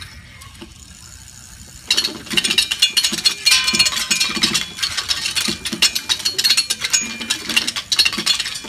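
Several upturned bicycles played as percussion instruments: dense, rapid metallic clicking and clattering with a few ringing tones, starting abruptly about two seconds in.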